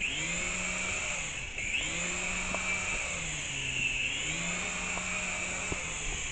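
Small RC helicopter's electric motor and rotors whirring, the pitch dipping and rising again several times as the throttle is worked to recover the helicopter, with a few light ticks.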